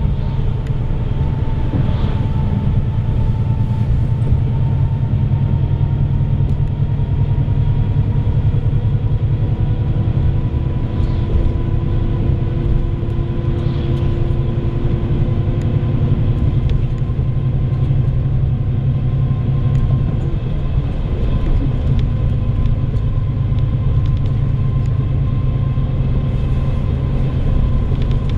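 Bus engine drone and road rumble heard from inside the cabin while the bus drives, with a steady whine over the rumble; about twenty seconds in, the engine's tones shift.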